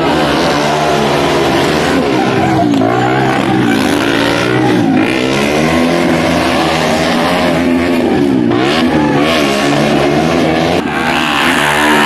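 Two KTM motorcycles revving, their engine pitch rising and falling over and over as the riders work the throttles.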